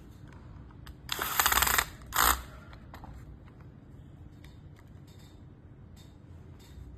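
The remote-control car's small electric motor and gear train whirring in two short bursts, the first lasting nearly a second and the second brief, as the drive is run after the main-shaft bearing is replaced. Faint clicks of handling sit around them.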